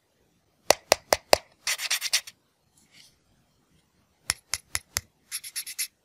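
Four sharp clicks in quick succession followed by a short scratchy rasp, the pattern heard twice.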